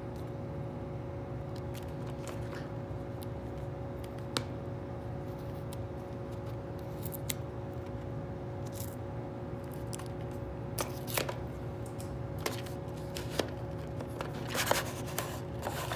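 Handling and opening a VHS tape's plastic packaging: scattered crinkling, scraping and sharp plastic clicks, busier in the second half, over a steady low hum.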